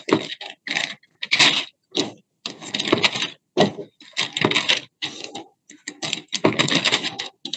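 Pages of a Bible being turned and leafed through, a run of short, irregular rustling bursts close to the microphone.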